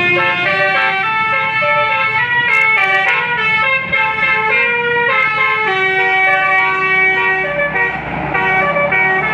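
Bus telolet basuri air horn playing a fast melody of short notes that step up and down in pitch, over a low rumble.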